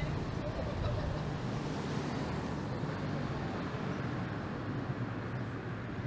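Fire engine's diesel engine running as the truck drives off down the street: a steady low rumble over road traffic noise.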